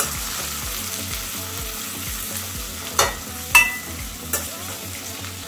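Sliced onions sizzling as they fry in ghee and oil in a stainless steel kadhai, stirred with a steel ladle. The ladle clinks against the pan three times in the second half, one clink ringing briefly.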